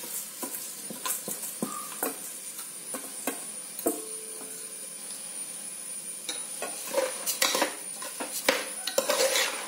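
Steel spatula scraping and clinking against an aluminium pressure cooker as rice is tipped in and stirred into wet vegetable masala, over a low sizzle. The scraping grows busier near the end.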